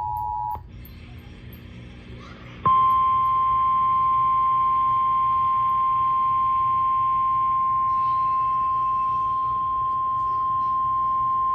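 Emergency Alert System tones over FM radio. The two-tone attention signal ends about half a second in. After a pause of about two seconds, a single steady 1050 Hz weather-radio warning tone sounds for about nine seconds, signalling a National Weather Service warning to follow.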